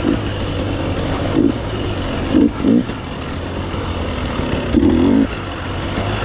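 Off-road dirt bike engine running continuously under the rider during a harescramble. It surges louder in short bursts several times, the longest about five seconds in.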